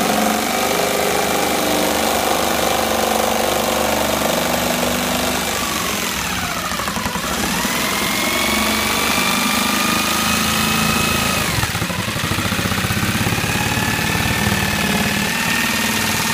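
Jigsaw cutting through a plastic car bumper cover, the motor whining steadily with the blade buzzing through the plastic. Twice the whine drops in pitch and climbs back, once about six seconds in and again near twelve seconds.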